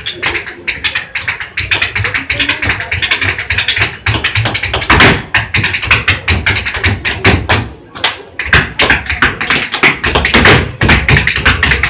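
Loud dance music with a fast, sharp percussive beat, like hand claps or taps, over a heavy bass pulse.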